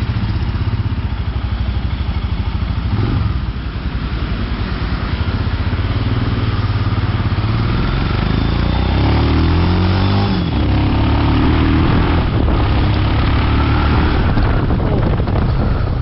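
Royal Enfield Himalayan's single-cylinder engine running as the motorcycle pulls away and rides, its pitch rising and falling through gear changes around the middle.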